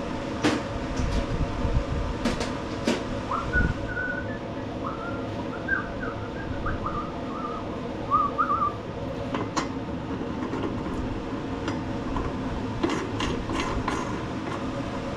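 Hand tools clinking and knocking as they are picked up and handled, a handful of separate sharp clicks over a steady hum. A run of short high chirps comes in the middle.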